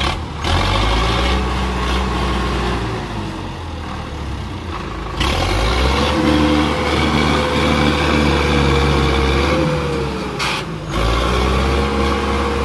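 A 62 hp ACE tractor's diesel engine running hard under heavy load, straining to pull a trolley of about 200 quintals of cement bags out of mud. It revs up and down with a whine that rises and falls, and the engine note drops off briefly twice, about five and about ten and a half seconds in.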